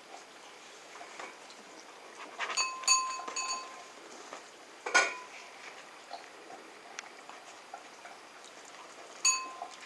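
Stainless steel food bowl clinking and ringing as dachshund puppies knock against it: a quick run of three rings a few seconds in, a sharp knock about five seconds in, and another ring near the end.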